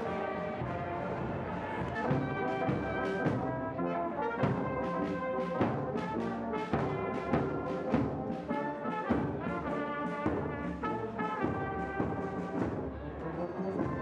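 Brass music with a steady drum beat: held and moving brass notes over regular percussion strikes.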